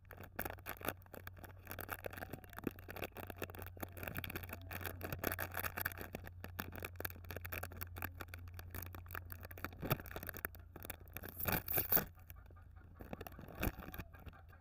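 Plastic candy wrapper being peeled open and crinkled by hand, then the foil wrapping of a chocolate egg lollipop crinkling: a dense run of crackles with a few louder ones near the end, over a steady low hum.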